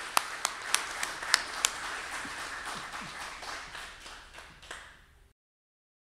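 Small audience applauding, with loud close hand claps standing out at about three a second for the first second and a half; the applause then thins and fades, and cuts off abruptly a little after five seconds.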